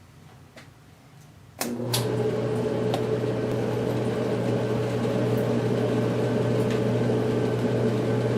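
A click about one and a half seconds in, then a Whirlpool clothes dryer starting up, its motor and drum running with a loud steady hum.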